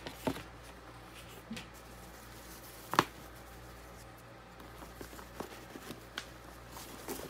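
Packaging being handled: a box and a satin dust bag moved about, giving scattered light rustles and taps, with one sharper knock about three seconds in, over a faint steady hum.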